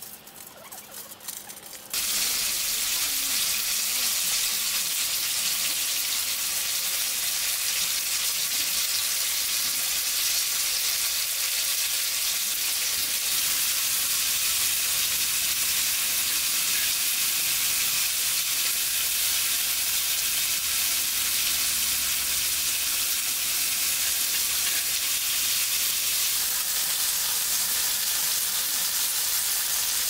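Food sizzling steadily in a hot pan. The sizzle starts abruptly about two seconds in, after a quieter stretch with a few clicks.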